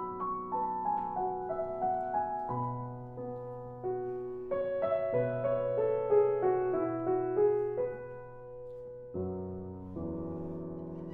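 Grand piano playing alone in the orchestral part of a violin concerto: two falling runs of notes, then two held chords in the last two seconds.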